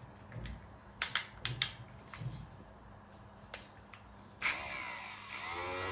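Light clicks of switches being handled, then a click about four and a half seconds in as the homemade drill's 775 DC motor, fed 12 volts, starts and runs with a whine that grows louder and wavers in pitch.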